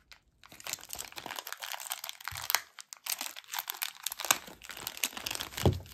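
Packing material crinkling and crackling as it is handled and unwrapped by hand, with a few sharper crackles near the middle and near the end.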